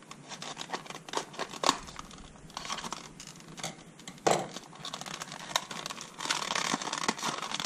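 Scissors snipping open a toy's packaging in a series of sharp clicks, then the packaging crinkling and tearing more continuously near the end.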